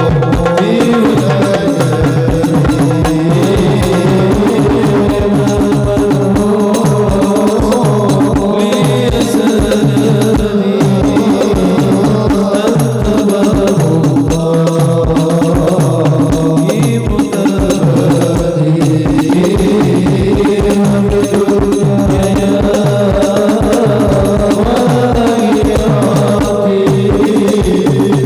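Live devotional song music: hand percussion beats a steady, quick rhythm under a sustained, wavering melodic line.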